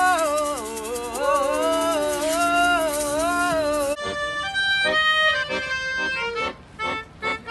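Piano accordion playing under a woman's singing voice, with a shaker rattling along. About four seconds in the sound cuts abruptly to accordion and melodica playing a tune in short, separate notes.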